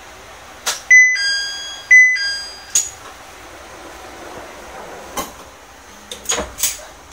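Two-note electronic chime, a higher note falling to a lower one, sounding twice about a second apart inside the cab of a KiHa 100 diesel railcar standing at a station. Several sharp clicks and knocks follow, a cluster of them near the end.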